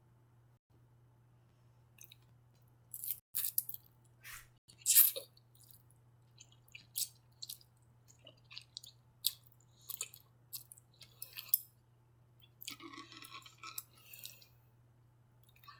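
Close-miked eating sounds: chewing and wet mouth clicks in short, scattered bursts, with a longer run of chewing noise about thirteen seconds in.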